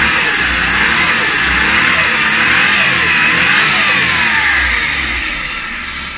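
Suzuki K6A 660cc three-cylinder engine being revved up and down several times, then easing back toward idle near the end. It is being revved to test a newly fitted serpentine belt.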